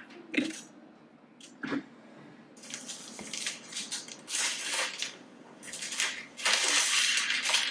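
Unboxing footage playing back through a MacBook Pro's speakers. A few short clicks come first, then from about two and a half seconds in, uneven waves of rustling, handling noise.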